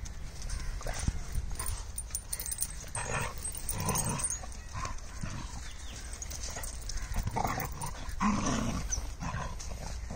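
Two dogs fighting: dog vocalisations in quick, irregular bursts, the loudest about eight seconds in.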